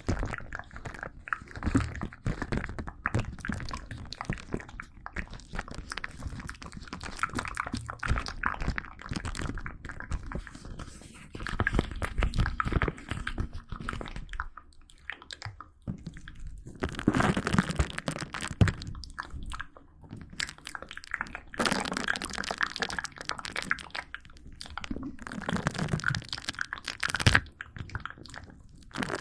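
Close-miked ASMR crunching and mouth sounds: a dense run of small crackles and clicks, with louder crunching bursts about two-thirds of the way in and near the end.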